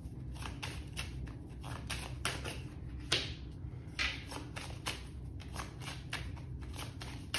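A deck of cards being shuffled by hand: a quick, uneven run of soft card clicks and flicks, with two louder snaps about three and four seconds in.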